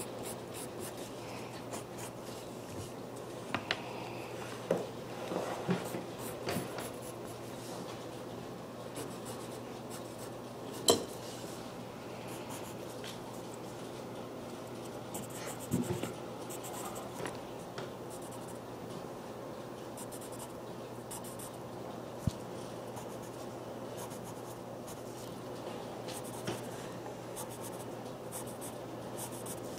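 Pen scratching on paper in short strokes as a drawing is inked, over a steady low hum, with a few sharp knocks of the pen or hand on the desk, the loudest about eleven seconds in.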